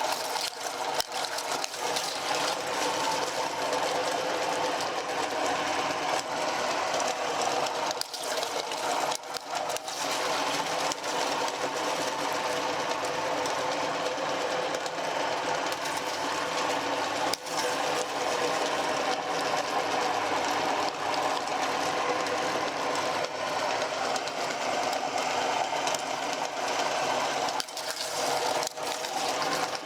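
Electric meat grinder running steadily: a constant motor whir with a few brief dips in loudness.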